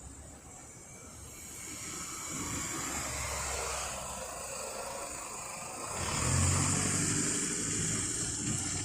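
A motor vehicle passing by, its engine and road noise growing louder about six seconds in.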